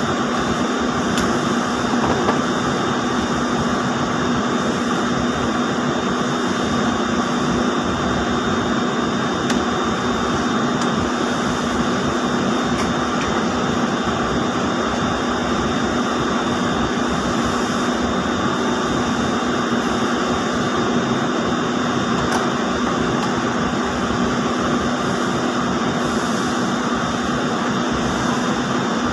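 Steady machinery noise of ring spinning frames running, an even drone with a constant low hum and a thin high whine.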